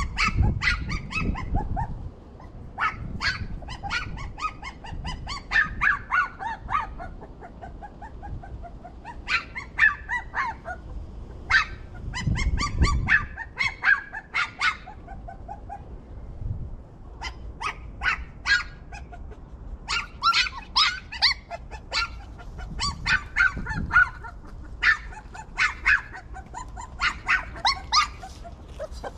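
Puppies whimpering and yipping: many short, high-pitched cries in irregular clusters, some rapid runs of yips.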